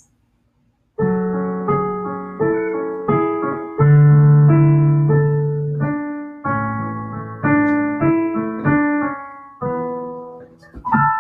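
Electronic keyboard with a piano sound, played with both hands in a slow run of chords that each ring out and fade, starting about a second in. The loudest chord comes about four seconds in and is held for nearly two seconds.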